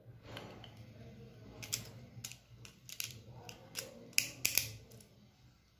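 Plastic parts of a Takara Tomy Beyblade Burst top clicking as it is taken apart and reassembled, a scattered series of sharp clicks with the loudest group about four seconds in. The clicks come from the burst-lock, which the owner finds has become very stiff.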